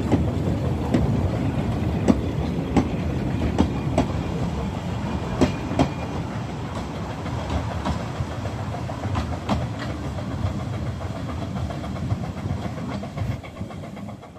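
Talyllyn Railway narrow-gauge carriages rolling past, wheels clicking and clattering over the rail joints with a steady rumble. The sound slowly fades as the train draws away.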